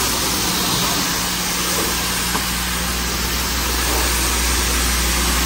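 High-pressure car-wash lance spraying water onto a car's bodywork: a steady hiss of the jet over a steady low hum.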